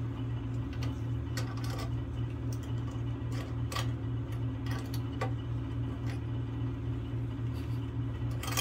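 Scattered small clicks and taps of metal bolts, washers and a clear plastic eye shield being handled and fitted onto a bench grinder's wheel guard, over a steady low hum.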